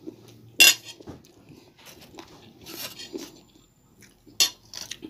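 A metal fork clinking and scraping on a dinner plate, with a sharp clink about half a second in and another near the end, and softer clicks between.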